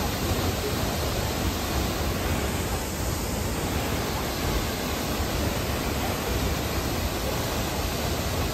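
Awosting Falls, a 65-foot waterfall, pouring into its plunge pool: a steady, even rush of falling water.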